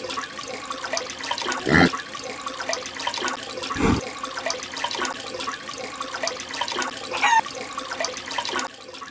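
Water sloshing and gurgling as a head rises out of it, with two louder splashes about two and four seconds in and a brief wavering whistle-like tone near the end.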